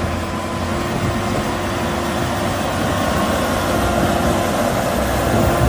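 Tractor engine running steadily, a constant mechanical noise with a faint steady hum.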